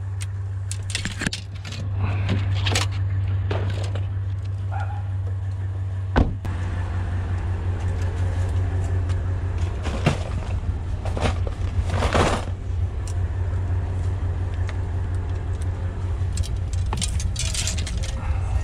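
A vehicle engine idling with a steady low hum, while fishing rods and gear are handled and set in place, giving scattered knocks and rattles; one sharp knock about six seconds in.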